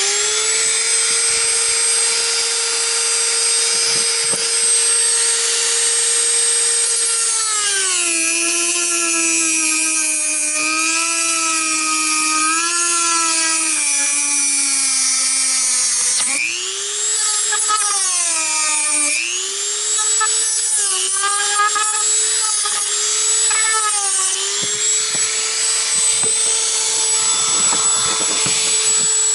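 Dremel rotary tool running with a steady high whine as it grinds away soft plastic in a door trim panel. Its pitch sags and wavers several times as the bit is pressed into the plastic, then climbs back up when the pressure eases.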